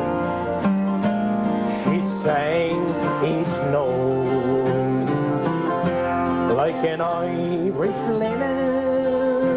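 Live folk music: an acoustic guitar accompanying a man singing.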